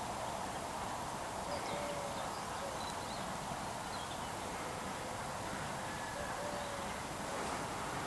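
FS Gr 740 steam locomotive chuffing faintly in the distance as it works its train away from a station stop, with a few birds chirping.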